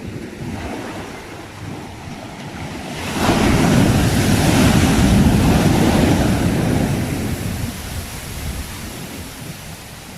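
Sea waves on a shore: one wave breaks about three seconds in with a loud rush of surf, then slowly washes out. Low wind rumble on the microphone runs underneath.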